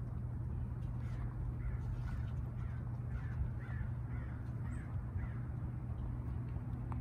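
A crow cawing in a quick series of short calls, about two a second, for several seconds, over a steady low hum.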